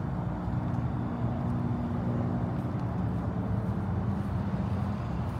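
A motor vehicle engine running steadily, a low hum whose pitch drifts slightly.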